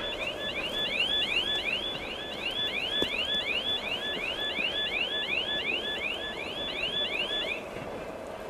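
Electronic level-crossing warning signal: a rising chirp repeated about three times a second, which cuts off near the end. Under it, the low rumble of freight wagons rolling away.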